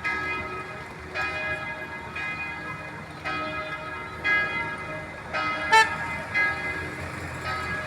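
Church bell tolling, struck about once a second, each stroke ringing on with several tones; one sharper, louder clang comes just before six seconds in.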